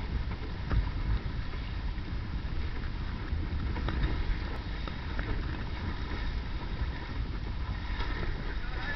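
Wind buffeting the microphone over the rush and splash of water along the hull of a small sailing dinghy under way, with a few faint knocks.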